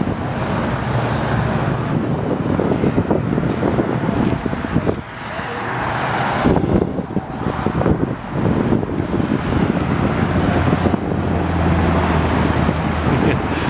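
Road traffic on a busy multi-lane road: cars and trucks driving past with engine and tyre noise, and wind on the microphone. A vehicle's low engine hum grows stronger near the end as one passes close.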